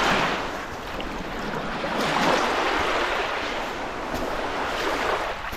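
Small waves of Lake Superior washing up onto a sandy, pebbly beach and drawing back. The surf swells and fades about every two to three seconds.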